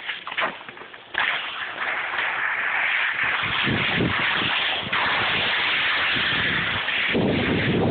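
A few clicks, then from about a second in, skis hiss steadily as they slide over packed snow. Low rumbles of wind buffet the phone's microphone twice, about halfway through and near the end.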